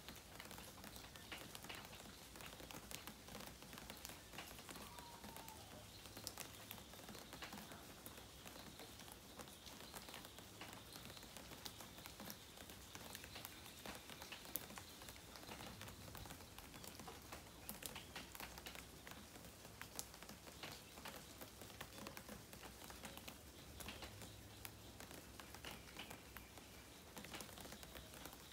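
Faint light rain: scattered drops pattering and dripping over a soft, steady hiss.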